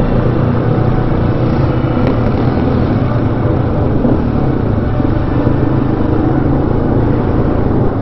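Single-cylinder supermoto motorcycle engine running at a steady pace, with no change in revs.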